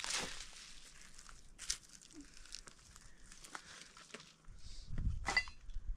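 Rustling and crinkling handling noise with scattered small clicks, and a louder low thump about five seconds in.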